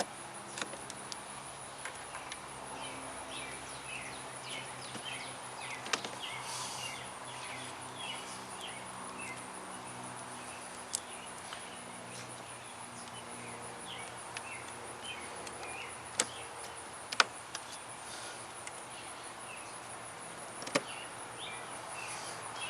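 A few sharp plastic clicks and knocks, spread out, as the interior trim panel's tabs are pushed back into place. Behind them is a steady background hiss with faint insect chirping.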